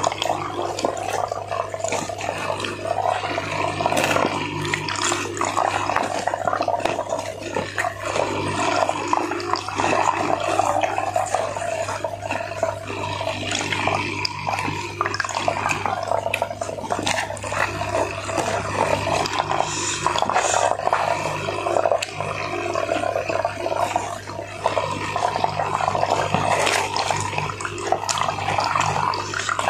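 Close-up chewing and mouth sounds of someone eating fried chicken and rice with his hands, with many small clicks and crackles, over a steady rushing noise and a low hum.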